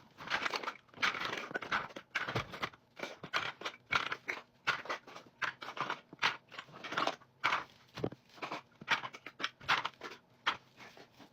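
Rustling, crinkling and light clattering of things being picked up and handled while tidying a room, in irregular short bursts.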